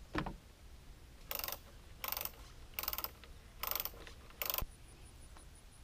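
A single knock, then five short bursts of rapid ratcheting clicks, evenly spaced a little under a second apart.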